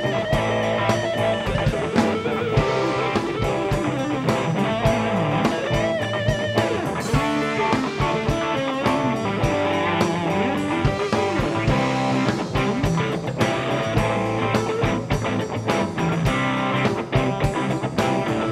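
A live rock band plays an instrumental passage: electric guitars over bass and drums. One guitar plays a lead line with bent and wavering notes.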